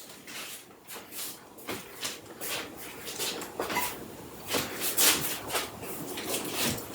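Packaging being handled: irregular rustling and crinkling with light knocks, a string of short uneven noises with no steady rhythm.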